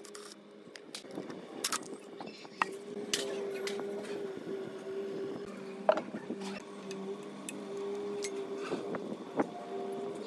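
Scattered metallic clinks and taps of wrenches and sockets on the cast-iron parts of an old diesel engine being taken apart, over a steady low hum.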